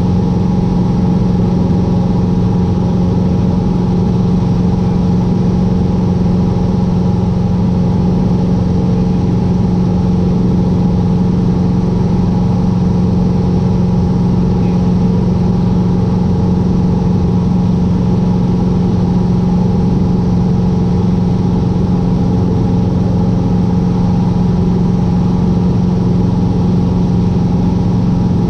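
Cessna 150's four-cylinder Continental O-200 engine and two-blade propeller droning steadily at an unchanging power setting in flight, heard from inside the cockpit.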